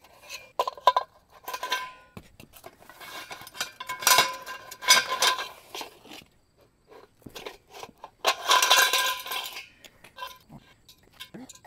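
Metal kennel frame bars clanking and rattling against each other as they are lifted out of their box and set down on concrete, in three bouts of clatter with a metallic ring.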